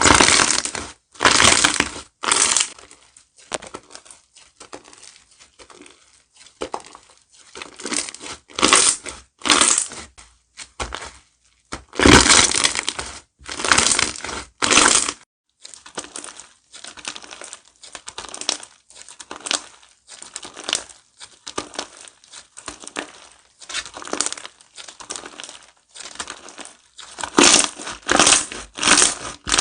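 Slime being squished and pressed by hand: a run of short noisy squishes in an uneven rhythm, some much louder than others.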